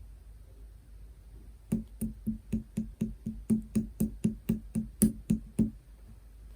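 Orange slime being pressed by fingers in a quick, even rhythm: about sixteen short, soft knocks, some four a second, starting just under two seconds in and stopping near the end.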